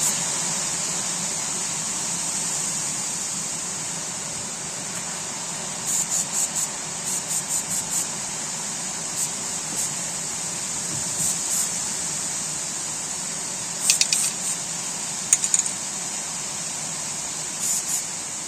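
Short bursts of a PTFE aerosol spray, released in quick clusters of several puffs each time, lubricating a car door hinge over steady wind hiss.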